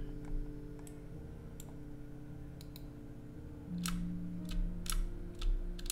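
Computer mouse buttons clicking now and then, more often in the second half, over a steady low electrical hum.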